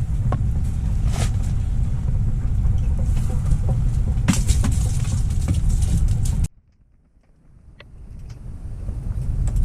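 Strong wind buffeting the microphone: a heavy low rumble with scattered crackles. It cuts off suddenly about six and a half seconds in, then builds back up over the last couple of seconds.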